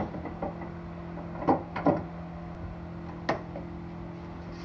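A few light clicks and knocks as a car's hood prop rod is released and stowed and the hood is lowered, over a steady low hum.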